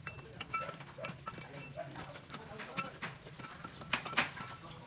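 Coconut milk simmering in a wok around banana halves, with scattered bubbling pops and sharp crackles and two louder pops near the end.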